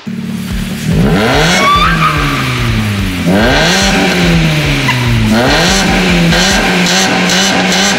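Ford Focus engine revved through its freshly tuned exhaust, which has a vacuum-operated valve and a black tip. It is blipped three times, each rev climbing quickly and then sinking slowly back down.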